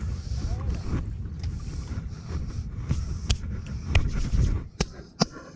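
Wind rumbling on the microphone, with about six sharp clicks and taps scattered through it.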